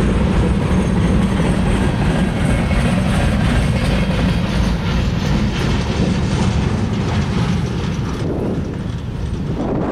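Freight train cars rolling past with wheels clicking over the rail joints, under heavy wind buffeting on the microphone. The rolling noise thins a little near the end as the train draws away.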